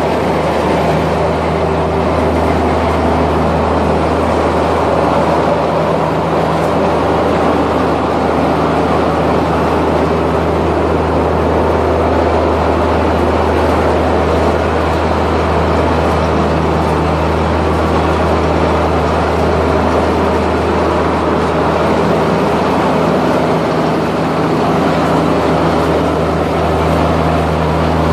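A big grinding machine running steadily at a constant load, a loud continuous mechanical noise over a deep hum.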